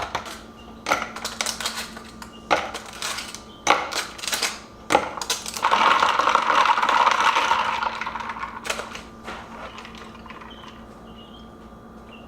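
Ice cubes dropped into a glass of iced latte, clinking sharply about four times over the first five seconds. A steadier rattling rush follows for about two seconds, then it fades to faint background.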